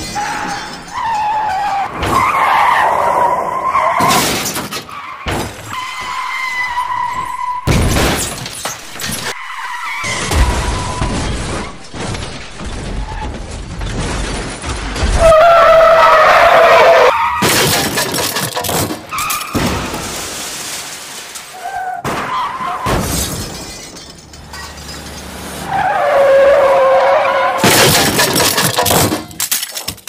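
Car crash sound effects: tyres screech several times, each time followed by heavy impacts and shattering glass, crash after crash.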